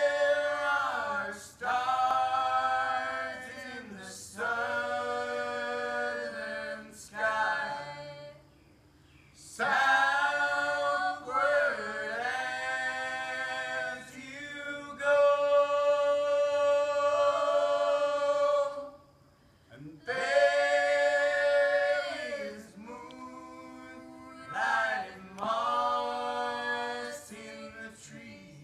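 A small group of voices singing a cappella, in phrases of held notes with brief pauses between them.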